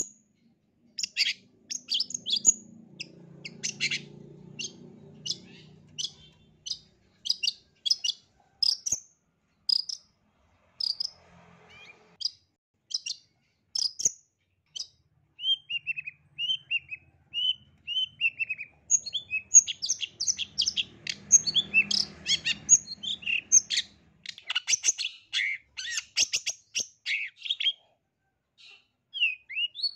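Long-tailed shrike (cendet) singing: a string of sharp high chirps, a lower warbling run about halfway through, then a fast dense run of chirps near the end.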